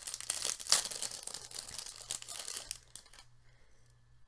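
Hands unwrapping packaging around a small item, crinkling and tearing for about three seconds, loudest a little under a second in, then quieter.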